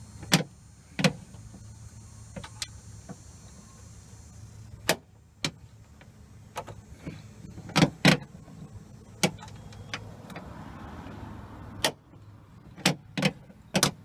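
Scattered sharp clicks and knocks of a 9/16 socket wrench working a generator's oil drain plug loose, over a steady low hum.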